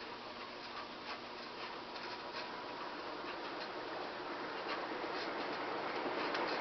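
Airmaster Mark VII 56-inch industrial ceiling fan running: a steady rush of air that grows steadily louder, with scattered faint ticks.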